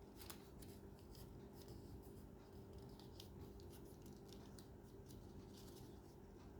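Faint crisp paper sounds from origami work: short rustles and clicks at irregular intervals, several a second at times, over a low steady hum.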